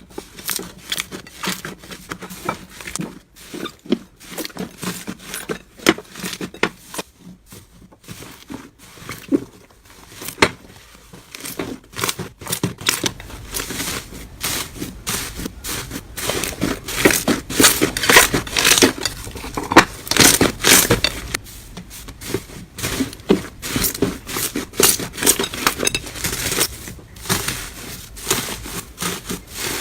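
Slime being squeezed, poked and stretched by hand, giving a stream of small crackling clicks and pops. These start sparse and grow denser and louder about halfway through.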